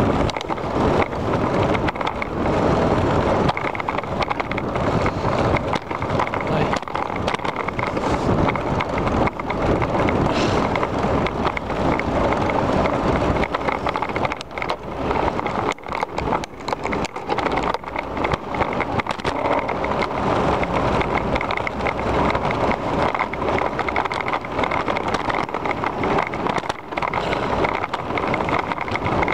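Riding a bicycle along a paved path: steady wind rush on the microphone with frequent rattles and knocks from the bike over the pavement, the knocks thickest about halfway through.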